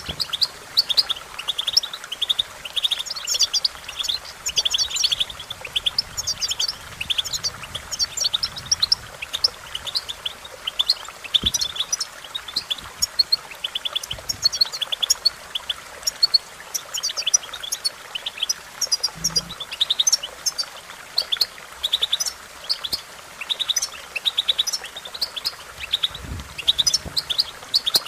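European goldfinch singing: a fast twitter of short high notes, phrase after phrase with only brief pauses.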